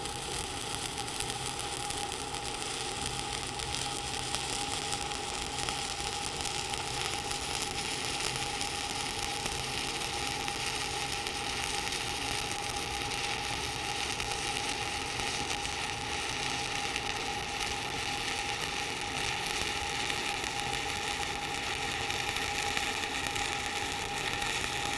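Shielded metal arc (stick) welding: a 3/32-inch 7018 electrode burning at 90 amps with a steady, even crackle and sizzle as a cap bead is laid on a fillet weld. A steady tone runs underneath.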